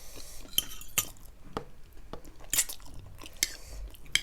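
Close-miked chewing of keema noodles: wet mouth clicks and smacks at irregular intervals, a handful in a few seconds.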